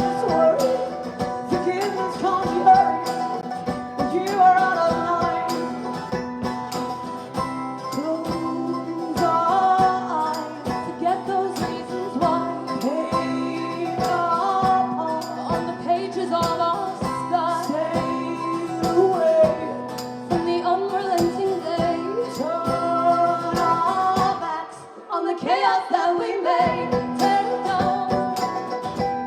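Live acoustic band performance: female vocals singing over strummed acoustic guitar, with a brief drop in the sound about twenty-five seconds in.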